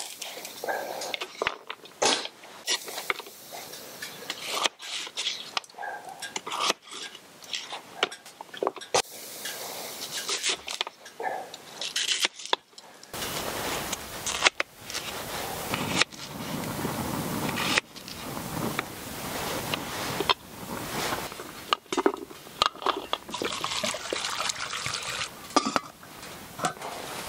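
A knife slices carrot, then onion and potato, on a small wooden cutting board: a run of irregular knocks of the blade on the board, with some scraping. Near the end there is handling of a stainless steel pot lid.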